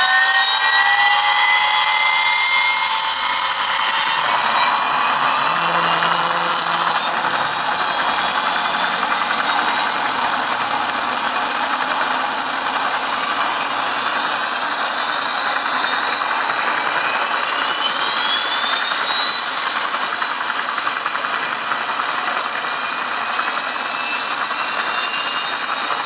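Simulated jet turbine sound from an RC model sound module, played through a loudspeaker. It is a loud, steady rush with several whining tones that keep gliding slowly upward, like a turbine spooling up.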